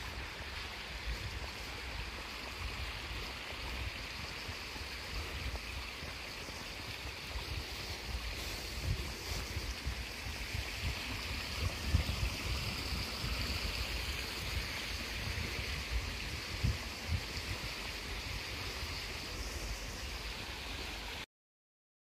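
Shallow rocky stream running, a steady rushing hiss, over a low rumble with a few louder low thumps, the loudest about midway. The sound stops abruptly near the end.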